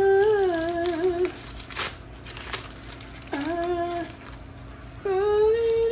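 A man singing three drawn-out, wavering notes in a high voice, the last one the longest, with short rustles of paper sheets being handled between them.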